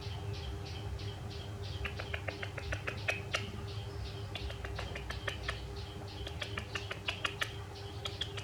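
A pet monkey's faint high-pitched squeaks, joined about two seconds in by a run of quick, irregular small clicks, over a steady low hum.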